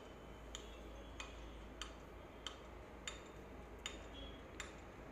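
Light clinks about every two-thirds of a second as cooked tomatoes are pressed and crushed through a stainless steel mesh strainer with a wooden masher, some with a short high ring.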